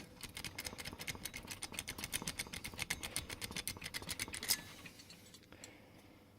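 A fast, even run of small metal-on-metal strokes, about nine a second, from an MS2 key blank being worked during padlock key impressioning. The strokes stop about four and a half seconds in.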